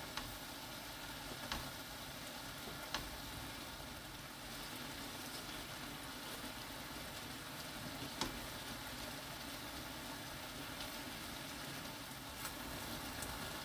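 Seasoned braising liquid bubbling and sizzling steadily around pieces of kabocha squash in a pan over high heat, reducing until it is nearly dry. A few light clicks come from the wooden spatula knocking against the pan.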